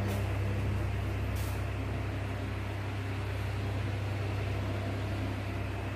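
Steady low electrical hum over even room noise, with a brief high hiss about one and a half seconds in.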